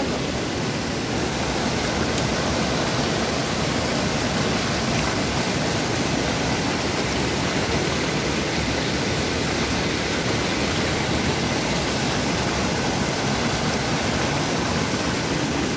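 Fast mountain stream rushing over boulders: a steady rush of white water.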